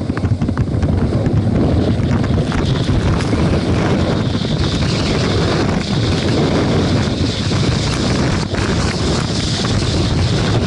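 Loud wind rushing and buffeting over an action camera's microphone during a fast downhill ski run, over the hiss of skis sliding on packed snow. It starts abruptly as the run begins and stays steady.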